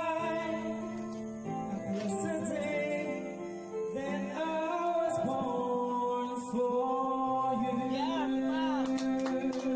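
Pop ballad music: guitar accompaniment with sung, long-held notes.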